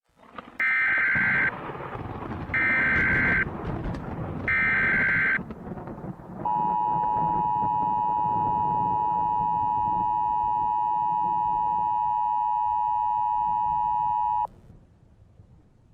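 Emergency Alert System broadcast alert. Three roughly one-second bursts of SAME header data tones come first, then the two-tone attention signal holds steady for about eight seconds and cuts off abruptly, over a low noisy rumble.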